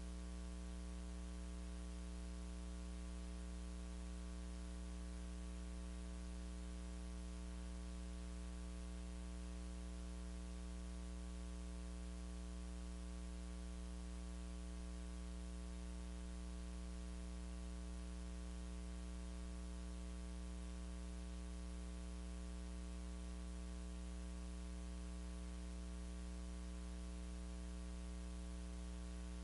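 Steady electrical mains hum with its overtones under a constant hiss, unchanging throughout; no singing or instruments are heard.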